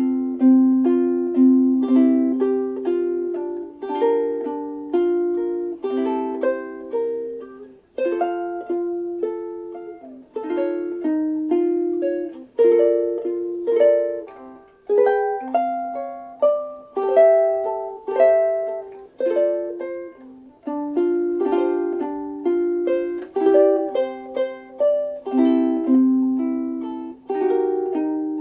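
Ditson-style soprano ukulele with a solid African mahogany body being played: a steady rhythm of plucked and strummed chords with melody notes on top, each chord ringing and then decaying.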